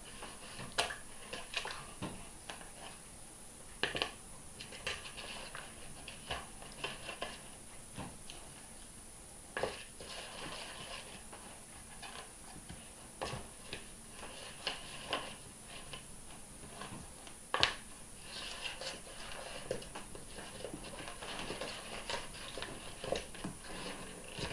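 Raw rabbit pieces dropped one at a time into a plastic mixing bowl of oily marinade and pressed in by hand: scattered soft knocks against the bowl over quiet wet handling sounds that grow busier in the second half.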